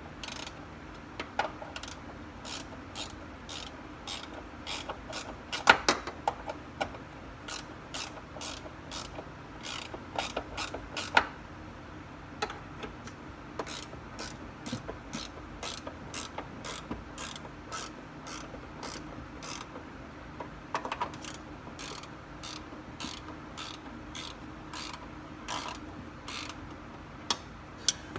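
Hand ratchet wrench clicking in quick repeated strokes as 12 mm bolts are turned out, with a few louder knocks from the tool against metal.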